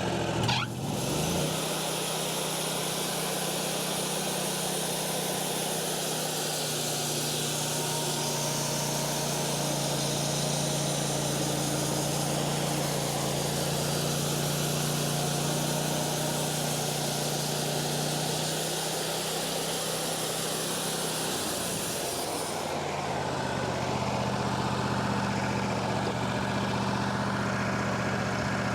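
Wood-Mizer LT40 band sawmill cutting through an elm log: a steady hiss of the band blade in the wood over the engine running under load. About 22 seconds in the cut ends and the engine keeps running, its pitch a little higher.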